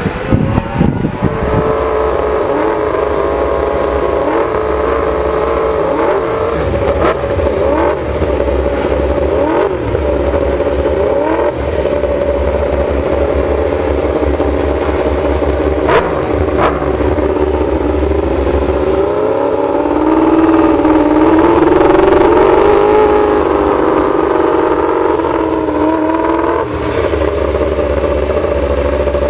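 Suzuki GSX-RR MotoGP bike's inline-four engine running at a fast idle with repeated quick throttle blips, then held at higher revs for several seconds past the middle before dropping back.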